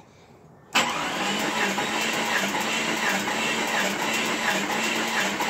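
Jeep Cherokee XJ 4.0-litre inline-six cranking over on its starter motor for a compression test of cylinder four, starting abruptly about a second in and turning over steadily with a faint regular pulsing.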